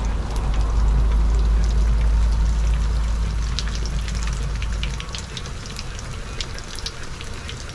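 Beer-battered bream fillets deep-frying in hot oil: a steady sizzle with many sharp crackling pops, the oil a little too hot. A low rumble underneath stops about five seconds in.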